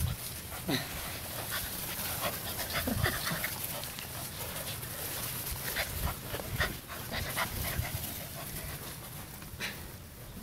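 English Golden Retriever puppies panting close by, with two short falling whines about a second and three seconds in, and scattered scuffling clicks.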